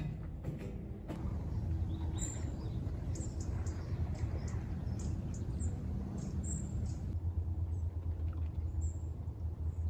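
Wind buffeting the microphone with a steady low rumble, and a few short, high bird chirps scattered through it.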